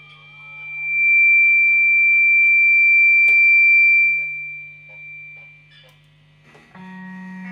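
Experimental improvised noise music: a single steady high pure tone is held for about four seconds, with a sharp click in the middle. Near the end a low buzzing note with many overtones comes in, over a faint steady hum.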